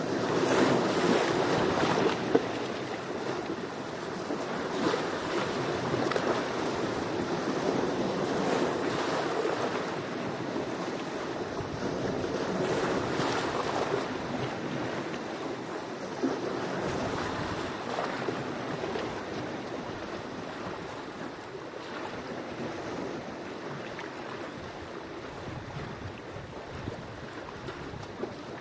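Sea waves washing ashore in a steady rolling surge, swelling and easing every few seconds, with wind noise on the microphone.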